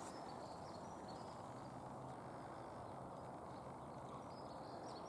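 Faint, steady outdoor background noise with a low steady hum underneath; no distinct event stands out.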